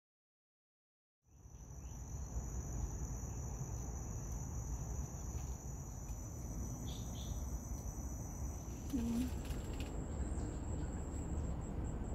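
Insects, crickets or similar, trilling in steady high-pitched tones over a low rumble. The sound begins about a second in, after silence, and the highest-pitched trill stops about three-quarters of the way through.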